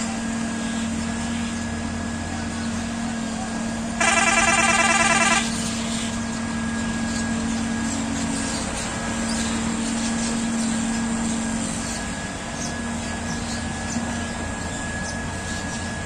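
Diesel engines of a wheeled excavator and farm tractors running steadily while soil is dug and loaded into tractor trolleys. About four seconds in, a loud high-pitched sound cuts in for about a second and a half.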